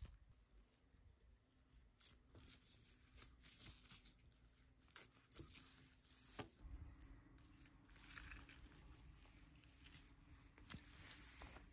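Faint sounds of a knife slicing through raw beef and the meat's membrane pulling and tearing, with a few sharp clicks scattered through.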